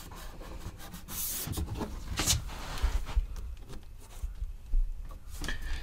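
Light handling noise: a hand rubbing on and gripping white plastic waste pipe, with scattered small clicks, two short rustles and a few soft low thumps.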